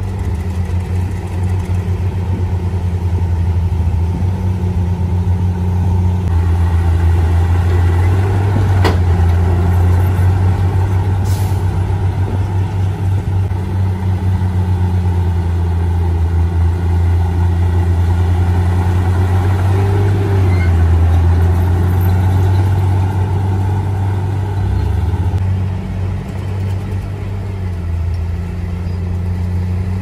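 Heavy diesel engines of a dump truck and a bulldozer running steadily with a deep low drone. A sharp click and then a short hiss of air come about a third of the way in.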